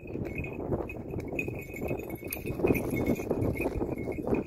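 Footsteps and scuffing on a gravel track, with the steady jingle of a small bell.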